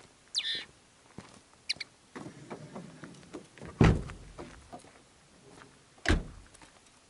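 An SUV's doors shut twice with heavy thunks: the side-hinged rear door about four seconds in, then another door about six seconds in. In the first two seconds a caged finch gives a few short calls.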